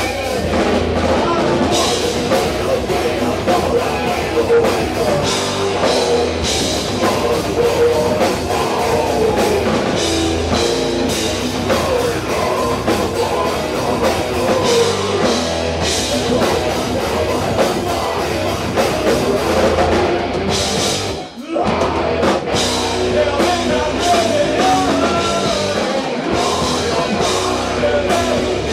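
Live rock band playing loud, heavy, punk-style music with a drum kit. The music drops out for an instant about three quarters of the way through, then comes straight back in.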